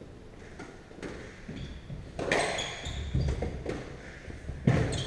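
Squash rally: the ball cracking off rackets and the court walls, the loudest strikes about two seconds in and near the end, with short high squeaks of court shoes on the wooden floor.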